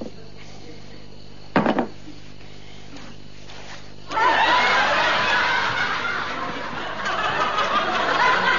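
Studio audience laughter that breaks out suddenly about four seconds in and keeps going. Before it there is a low steady hum and one brief loud sound about one and a half seconds in.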